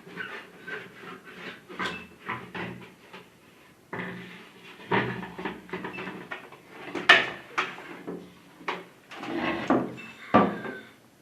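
Irregular knocks, clacks and scrapes of hard plastic and tools being handled while a tube television is worked on, with a few louder knocks about halfway through and near the end.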